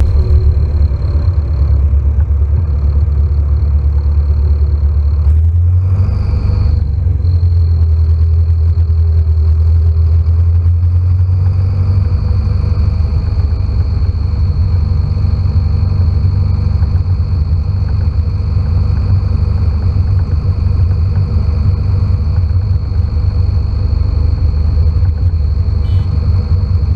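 Farm tractor's diesel engine running steadily under way, heard close up from a camera mounted on the tractor, with a thin steady high whine above the low drone. The engine note shifts about six seconds in.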